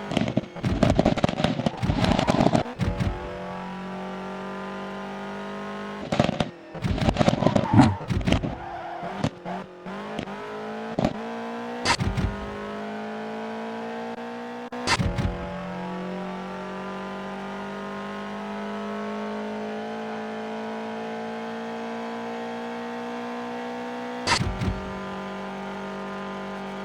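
Car engine idling steadily, with short sharp throttle blips revving it: a flurry of blips in the first few seconds, another flurry around six to eight seconds, then single blips spread out. Between the blips the idle drifts slowly higher in pitch.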